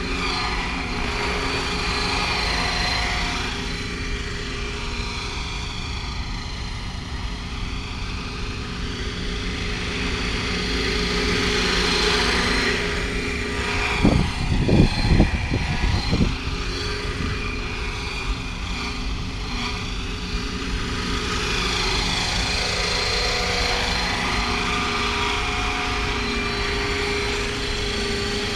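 Radio-controlled scale MD520 helicopter in flight, its Aerosound module playing a simulated turbine whine over the rotor noise. The pitch rises and falls as it passes back and forth. About halfway through there are a couple of seconds of loud low buffeting as it passes close.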